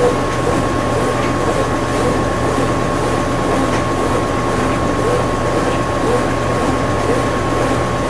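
Electrolux LTM16 Direct Drive top-load washing machine in its spin cycle, the basket spinning fast: a steady machine hum with a constant high whine.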